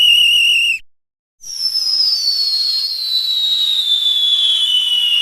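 Cartoon whistle sound effects: a warbling whistle tone that cuts off just under a second in, then, after a short gap, a long falling whistle that slides slowly and steadily down in pitch, the classic cartoon falling sound.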